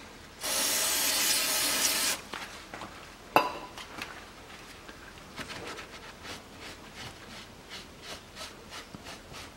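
A rag rubbing over the rear differential housing around its drain plug, wiping off leftover gear oil. About half a second in, a steady hiss lasts for a second and a half; a sharp click follows a second later, then light scattered rubbing and small ticks.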